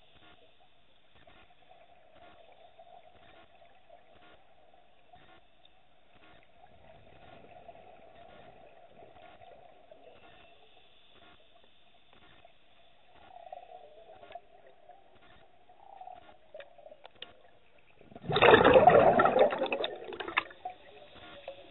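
Underwater sound through a diving camera's housing: a faint steady hum with light ticks, then, about eighteen seconds in, a loud rush of scuba regulator exhaust bubbles lasting about two seconds.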